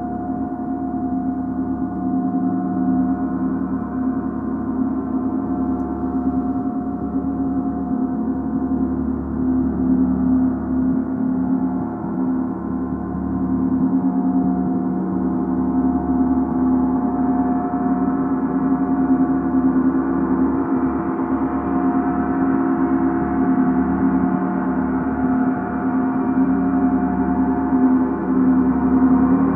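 Paiste gong played with soft mallets in light, continuous strokes, giving a sustained wash of overlapping tones. The sound grows brighter and a little louder through the second half.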